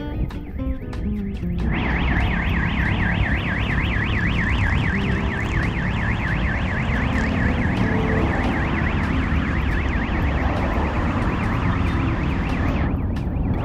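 Electronic warbling siren sweeping up and down in pitch several times a second. It starts about two seconds in and cuts off suddenly shortly before the end.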